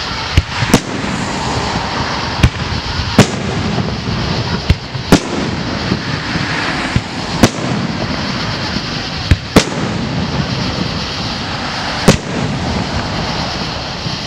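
Fireworks display: aerial shells bursting with about ten sharp bangs at irregular intervals, some in quick pairs, over a steady background noise.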